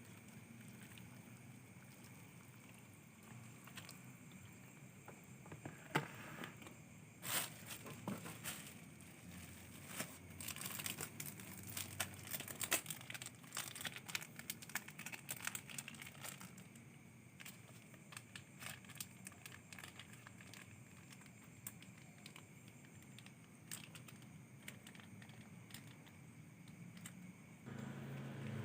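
Irregular crinkling and rustling of something being handled, with scattered sharp clicks, busiest through the middle stretch. A low hum starts near the end.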